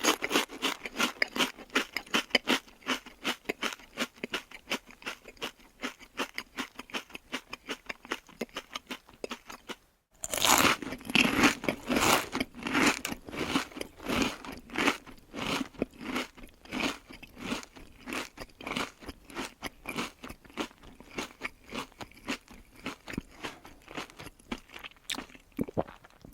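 Cartoon potato-chip munching sound effect, the sound known from Chuck E. Cheese's Ticket Muncher: rapid crunches at about four a second. It breaks off briefly about ten seconds in, then resumes louder.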